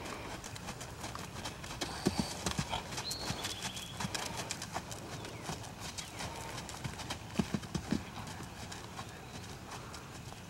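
Hoofbeats of a horse cantering on a sand arena: a run of soft, rhythmic strikes, with a few heavier thuds about two seconds in and again near the eight-second mark.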